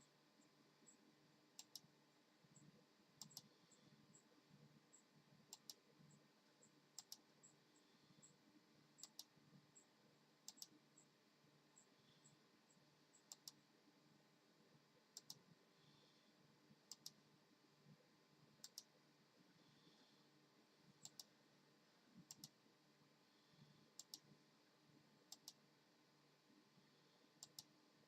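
Faint sharp clicks, often two in quick succession, coming about every one to two seconds.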